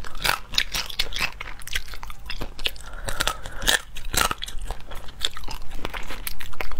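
Close-miked eating: irregular crunching and crackling as cooked crayfish shells are bitten and picked apart, with chewing in between.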